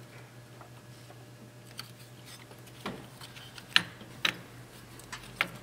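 Scattered light clicks and taps of the fuel rail and injectors being handled and seated by hand, with two sharper clicks about four seconds in, over a faint steady hum.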